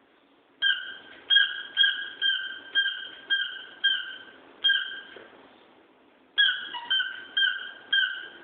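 A rubber squeaky toy squeezed over and over by a dog chewing it: about ten sharp squeaks of steady pitch, roughly two a second, then a short pause and about five more.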